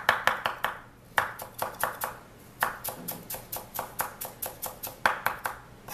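Chef's knife mincing fresh ginger on a wooden cutting board: quick, sharp knocks of the blade on the board, about six a second, in several runs with short pauses between them.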